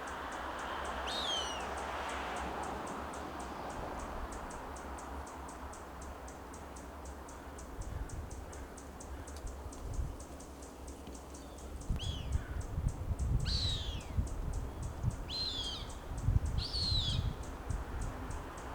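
Juvenile Cooper's hawks calling: short whistled calls, each falling in pitch and about half a second long, one near the start and four more close together in the last third. Low rumbling comes and goes under the later calls, with a faint fast ticking throughout.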